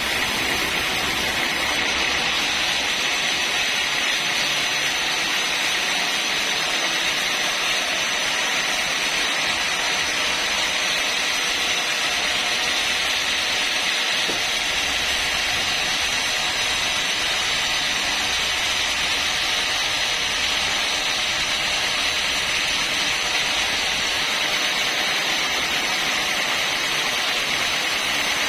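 Sawmill saw cutting steadily through a log: a constant hissing noise with a thin, steady high whine.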